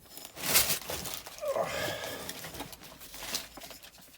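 Junk and debris being handled and shifted by hand: scraping and rustling, with a short squeak that glides upward about one and a half seconds in.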